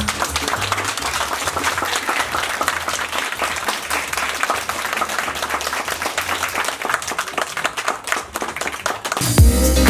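Audience applauding with hand claps. A music track with a strong beat cuts in near the end.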